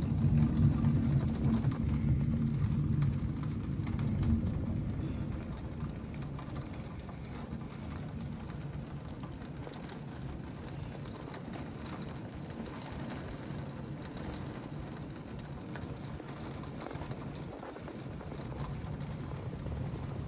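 Heavy rain pouring steadily onto pavement. A low rumble is loudest in the first few seconds and dies away about five seconds in.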